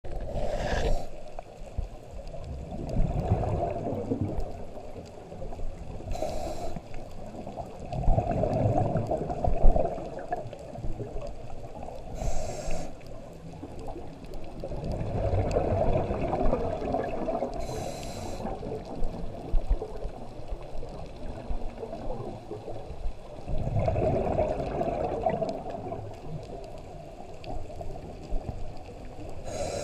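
Scuba diver breathing through a regulator, heard underwater: a short hissing inhale every six seconds or so, each followed by a longer burbling rush of exhaled bubbles.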